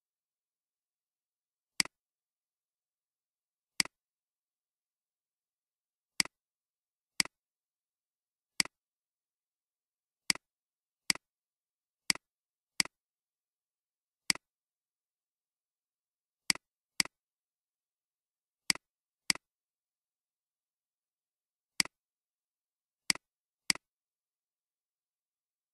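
Computer mouse clicking: about seventeen single sharp clicks spaced irregularly one to two seconds apart, several of them in quick pairs.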